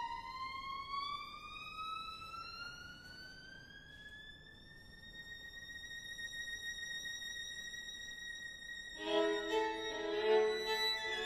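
Violin duo: a single high violin note slides slowly upward and is held, softly. About nine seconds in, both violins come in with louder, shorter notes lower down.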